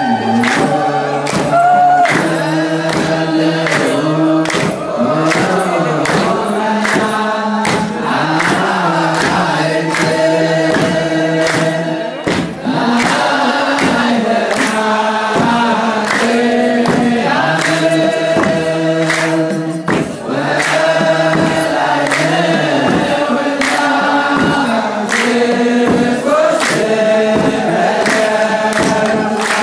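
Male chorus of Ethiopian Orthodox clergy chanting a woreb hymn in unison on long held notes, with steady beats from a kebero drum.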